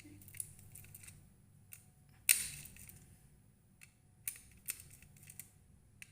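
Scattered small clicks and knocks of fire alarm modules and wiring parts being handled on a bench, with one sharper knock a little past two seconds in.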